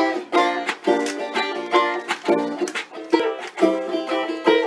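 Background music: a plucked string instrument picks out a bouncy tune in short, sharply struck notes.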